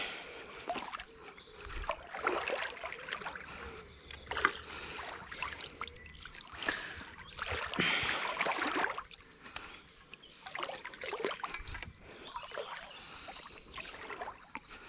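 Water sloshing and splashing in irregular surges as a person wades through a shallow pond in waders.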